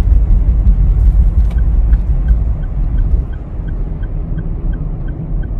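Road and engine rumble heard from inside a moving car, easing slightly a little past halfway. A light, even ticking about three times a second starts about two seconds in.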